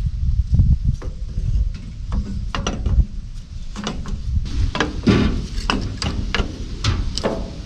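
Irregular metallic clicks and clunks of hand tools and engine parts being handled while fitting the carburetor and air intake tube on a Ford 8N tractor engine, the clicks coming thicker in the second half, over a low rumble.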